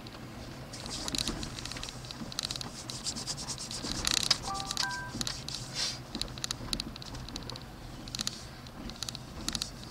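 Inside a pickup truck's cab driving slowly along a town street: a low steady hum under dense, rapid clicking and scratching, with a short run of brief pitched tones about four and a half seconds in.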